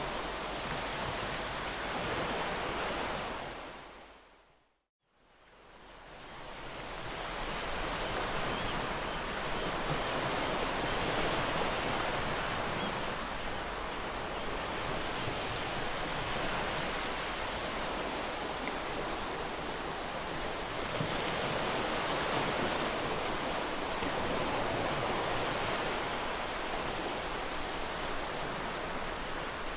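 Ocean surf washing on a shore as a continuous rushing noise with slow swells. About four seconds in it fades out to a moment of silence and fades back in over a couple of seconds, as at a loop or edit join.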